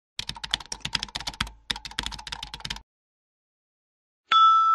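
Rapid computer-keyboard typing clicks in two runs of about a second each. Near the end an electronic beep tone starts abruptly, loud and steady, and rings on.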